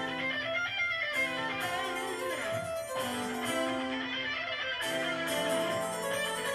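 Harpsichord playing a quick classical passage, with a violin playing alongside.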